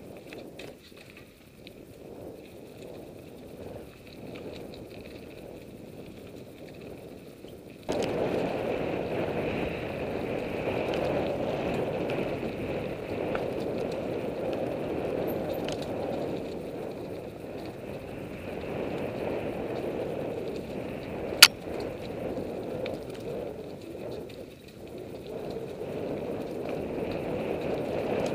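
Mountain bike riding along dirt singletrack: steady rolling noise from the tyres and bike, which gets louder about eight seconds in, with one sharp click about three quarters of the way through.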